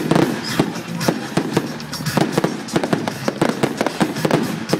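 Aerial fireworks going off in quick succession: many sharp, irregular bangs and pops from shells bursting overhead.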